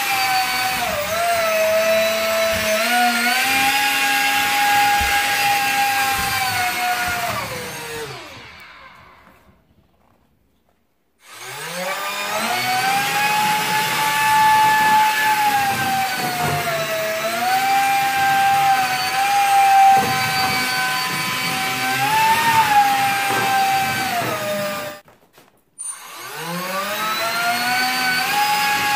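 High whine of a small electric motor driving a 3-inch propeller on an RC hovercraft. The pitch rises as it spins up and wavers slightly as the throttle changes. It winds down to silence about ten seconds in, then spins up again, cuts off sharply near the end, and starts up once more.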